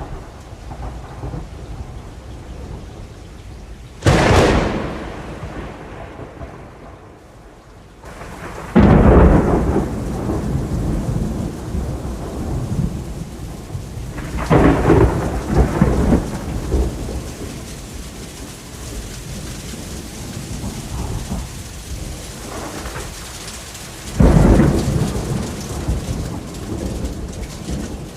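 Thunderstorm: four claps of thunder, each a sudden crack that rolls into a rumble and dies away over a few seconds, with steady rain falling throughout and growing heavier after the second clap.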